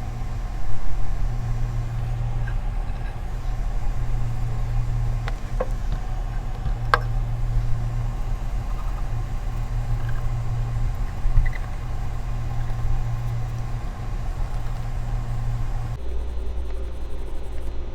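A steady low machine hum, with a few faint light clicks, that cuts off suddenly about two seconds before the end.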